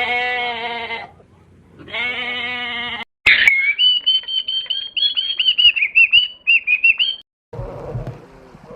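Two long bleats, about a second each, from a sheep or goat-like animal. Then an abrupt switch to a bird's high, warbling whistle lasting about four seconds. A lower, noisier sound starts near the end.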